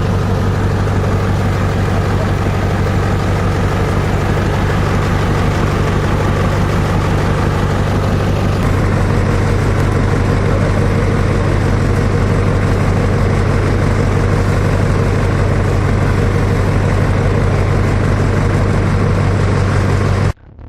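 Multi-purpose chopper-shredder machine running steadily with a loud, low, even hum under a noisy hiss. The hiss eases off about nine seconds in, and the sound cuts off abruptly near the end.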